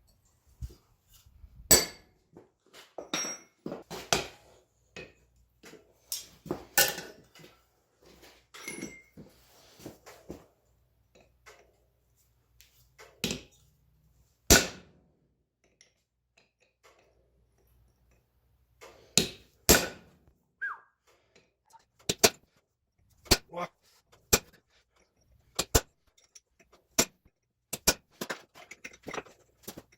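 A hammer striking steel in separate sharp, ringing blows, typical of a chisel being struck to mark slots in a steel bar. The blows are irregular at first, pause for a few seconds midway, then fall into a steadier run of about one a second near the end.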